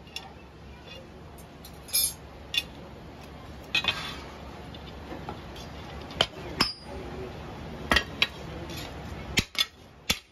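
Irregular metallic clanks and clinks as a long flat steel blade is shifted about and set down on the power hammer's lower die, about ten sharp knocks at uneven intervals, some with a brief ring.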